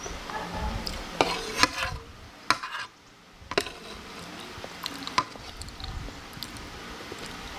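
Close-miked eating sounds: wet chewing, with sharp clicks of a utensil against a plate scattered through, the loudest a few about one to two and a half seconds in and one at about three and a half seconds.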